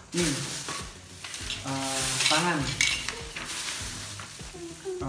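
Rustling of paper and plastic packaging as office-chair parts are handled, in uneven stretches, with a short voice-like sound about two seconds in.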